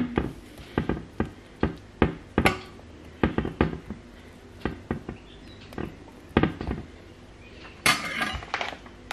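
Metal spoon clinking and scraping against a metal baking tray and pizza bases while tomato sauce is spread: a string of irregular light clicks and knocks, with a short rustling scrape near the end.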